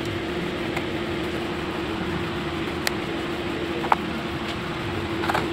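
Steady hum and hiss of room noise, with two light clicks about three and four seconds in as a cardboard box and its plastic insert are handled and set down.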